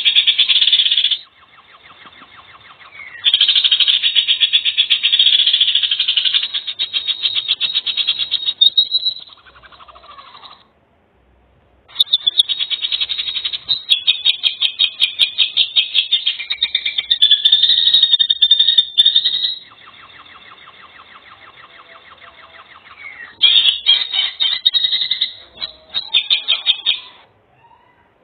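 Birds calling in loud, rapid, buzzy pulsed trills that come in several bouts of a few seconds each, with short breaks between them.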